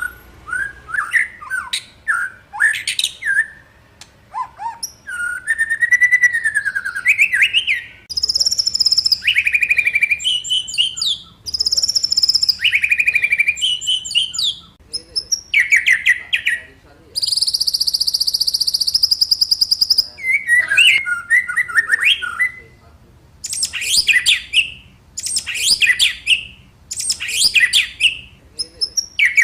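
White-rumped shama (murai batu) singing a long run of varied whistled phrases and quick chattering trills, with a long buzzy rattling phrase partway through.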